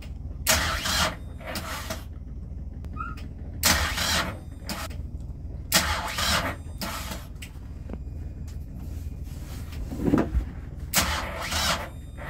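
Catamaran's port inboard engine being cranked by its starter in repeated short bursts over a steady low rumble, never catching: the engine will not fire.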